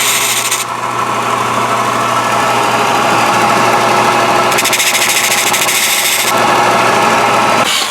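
Handheld electric drill running with a bit cutting into the instrument cluster panel. The cutting noise grows louder twice, at the start and about two-thirds of the way through, and the motor cuts off near the end.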